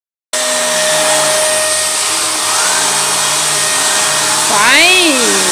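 A vacuum cleaner starts up a fraction of a second in and runs steadily with a constant whine. Near the end a short voice rises and falls in pitch over it.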